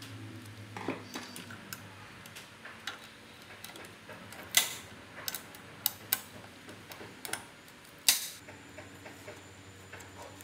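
Irregular clicks and light knocks of hand tools and small metal parts being handled, with two sharper, louder knocks, one near the middle and one about eight seconds in.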